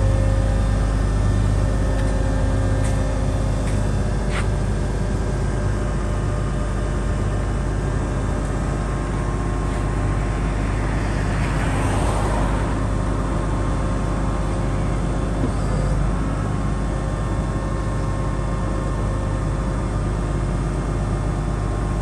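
Dynapac SD2500CS asphalt paver's diesel engine running steadily with a low hum. A brief rushing hiss swells about halfway through.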